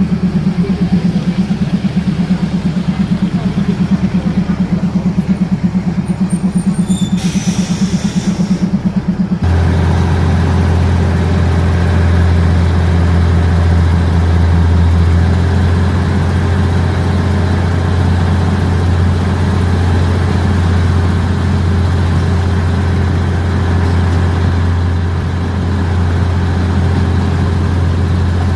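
Diesel passenger train heard from an open carriage window. Its engine runs with a fast pulsing beat, with a brief hiss about seven seconds in. About nine seconds in the sound changes abruptly to a steady, heavier low drone as the train gets under way along the track.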